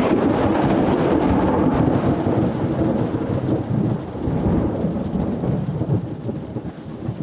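A close, loud thunderclap rolling into a long rumble that slowly dies away, over steady rain from a thunderstorm directly overhead.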